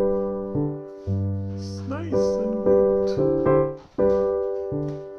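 Background piano music, slow and gentle: notes and chords struck and left to fade, a new one about every second.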